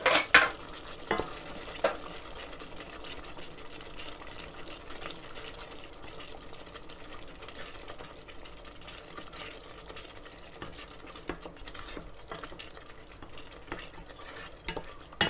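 Wooden spoon stirring a tomato sauce in a stainless steel pot, scraping and tapping the pot, with the hot sauce sizzling steadily underneath. A few sharper knocks of the spoon on the pot come right at the start and near the end.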